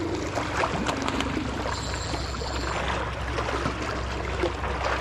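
Water lapping, with a steady low rumble underneath and scattered small clicks.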